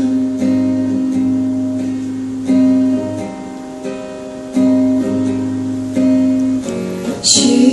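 Acoustic guitar strumming chords in a song's instrumental passage. Each chord is left to ring and fade, with a new strum about every one and a half to two seconds.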